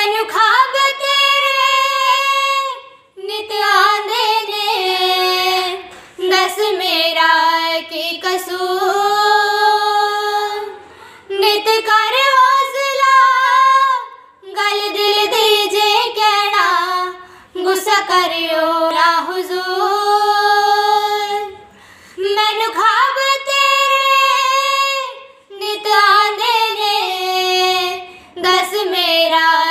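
Two women singing a melodic song together in unison with no accompaniment, in sustained phrases of a few seconds separated by short breaths.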